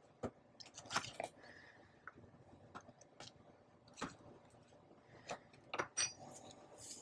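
A canister of iodized salt being opened, its lid handled and the paper seal picked at and torn off: a scattered string of faint clicks, scrapes and crinkles, with louder clusters about a second in and near the end.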